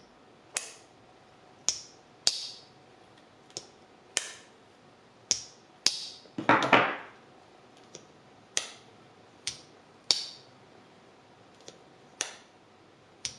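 Great Eastern Cutlery #77 Northfield slipjoint pocketknife blades opened and closed in turn on two knives, each backspring giving a sharp click or snap, about sixteen in all, with one longer, louder clack about six and a half seconds in. The single-blade knife has the firmer, snappier pull (about a 7); the other's is lighter (about a 5).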